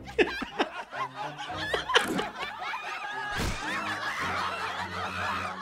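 Laughter, snickers and chuckles from the cartoon's characters, with music underneath.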